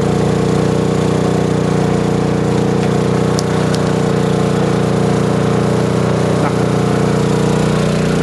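Honda EU2000i inverter generator's single-cylinder four-stroke engine running steadily on natural gas fed through a regulator, with no gasoline in its tank.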